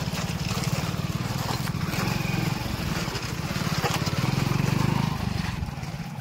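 Motorcycle engine running at low speed, heard close up from the pillion seat as the bike rides slowly over rough, rocky ground. Its pulsing note swells about four seconds in and eases off near the end.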